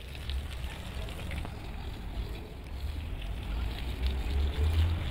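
Water from a garden hose spraying and splashing onto a soaked, foamy wool rug, a steady hiss, over a low rumble that gets louder near the end.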